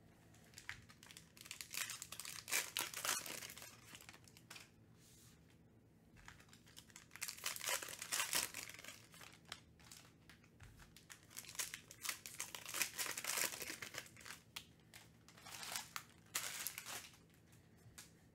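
Foil trading-card pack wrappers crinkling and tearing open, with cards being handled. The crinkling comes in four bouts, each a few seconds long.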